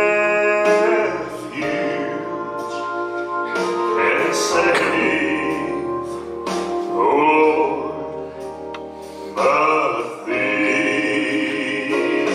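Man singing a gospel song solo, holding long notes with vibrato, over a musical accompaniment with a steady bass line.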